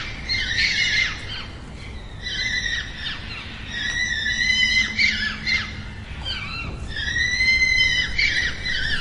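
Fox calling: a run of high-pitched cries, three of them drawn out to about a second each and arching in pitch, with shorter, quicker yelps between.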